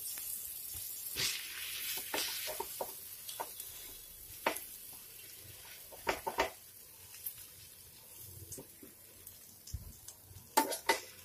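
Butter sizzling on a hot tawa griddle as pav buns are pressed into it to toast. The sizzle is strongest in the first few seconds and then fades, with a few short knocks against the griddle about halfway through and near the end.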